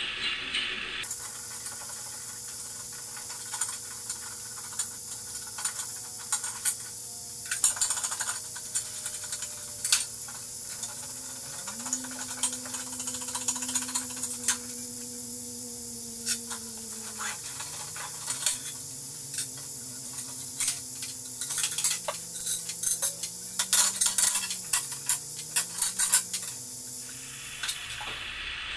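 Screwdriver work and small metal screws and parts clicking and clinking as the heated build platform of a 3D printer is unscrewed and lifted off, over a steady hiss.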